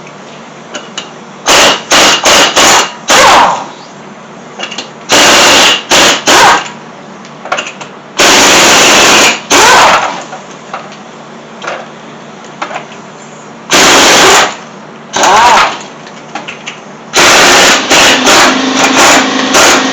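Impact wrench running in repeated loud bursts of rapid hammering, from a fraction of a second to about two seconds each with short pauses between, loosening a car wheel's lug nuts.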